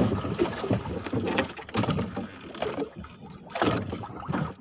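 A fishing handline being hauled in hand over hand aboard a small boat: irregular rustling, with clicks and knocks.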